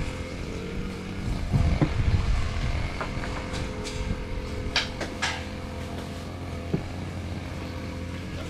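An engine running steadily, with two short, sharp higher sounds about five seconds in.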